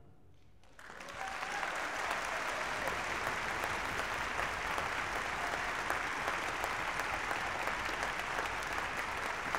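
Concert audience applauding. After a brief hush, the clapping starts about a second in and settles into steady applause.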